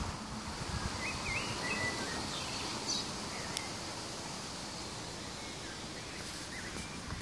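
Outdoor ambience: a steady background hiss with a few short bird chirps scattered through it, and a single faint click about three and a half seconds in.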